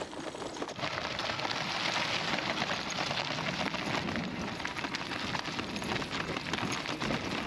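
E-bike tyres rolling over a loose, stony gravel track: a dense, steady crunching crackle full of small clicks from the stones, which sets in abruptly about a second in.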